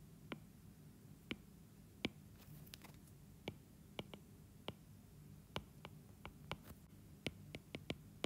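Faint, irregular clicks of a stylus tapping on a tablet screen while handwriting, coming closer together in the second half.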